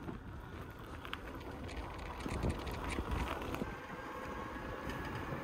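Wind buffeting the microphone over the low rumble of an electric trekking bike rolling along a paved path.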